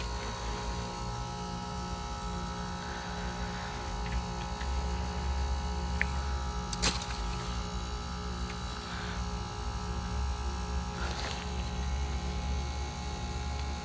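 A 2018 3.5-ton Ameristar heat pump outdoor unit running in defrost mode: a steady low hum with several steady tones over it. A couple of brief sharp clicks come about six to seven seconds in.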